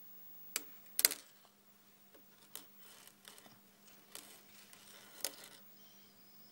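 A fishing rig being handled: a few sharp small clicks and clinks, the loudest about a second in, with soft rustling between them.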